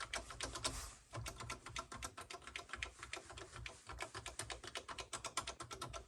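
Keys being typed on an Apple II keyboard: a quick, uneven run of clicks, with a short pause about a second in.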